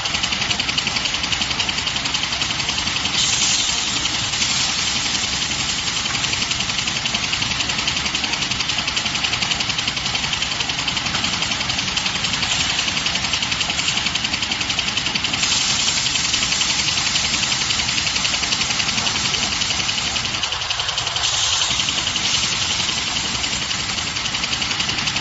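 Band saw cutter of a hand towel paper cutting machine running steadily, a dense, fast mechanical chatter with a hiss high up. A brighter hiss comes in for a few seconds several times.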